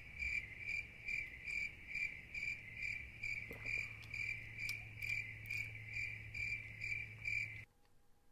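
Crickets chirping as an added sound effect for an awkward, empty silence: an even, high chirp repeating nearly three times a second, cutting off abruptly near the end.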